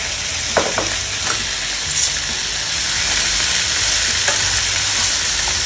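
Pork hocks and onions sizzling steadily as they fry in a nonstick pan, with a few light clicks of metal tongs turning the pieces.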